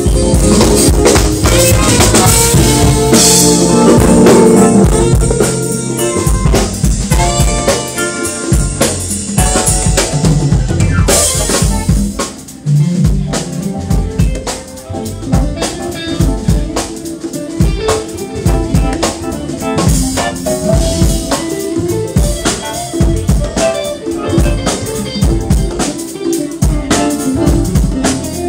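Live jazz band playing a groove: drum kit and congas drive the beat under keyboards and other instruments.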